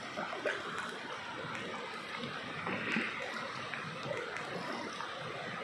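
Steady rush of river water around a small boat as it runs through a shallow riffle.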